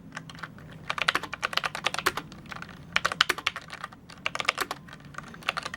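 Keys of a Redragon K589 Shrapnel low-profile mechanical keyboard being pressed, with a clicky feel. The clicks come in about five quick runs of keystrokes with short pauses between them.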